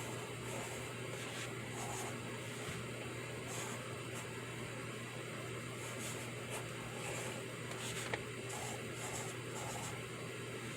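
Pencil writing on paper in short, irregular scratchy strokes, over a steady background hum and hiss, with one sharp tick about eight seconds in.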